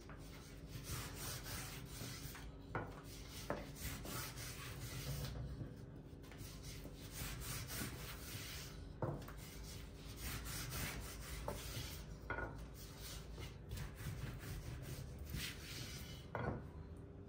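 Long thin wooden rolling pin (oklava) rolling and rubbing thin yufka dough sheets wrapped around it on a floured pastry mat. It makes a faint, steady rubbing swish, with a few soft knocks of the pin.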